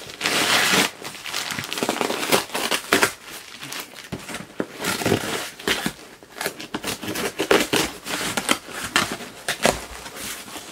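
Crinkling plastic, tearing packing tape and rustling cardboard as a shipping box is opened: a plastic invoice pouch is peeled off the lid, the taped seam is torn open and the flaps are pulled back. The loudest crinkling is in about the first second, followed by many short irregular crackles and rips.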